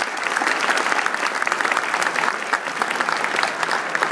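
Audience applauding, many people clapping steadily for an award presentation.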